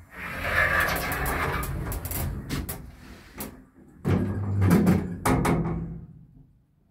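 Elevator's Zremb automatic car doors working: two spells of sliding and rattling with sharp clicks from the door mechanism, fading out near the end.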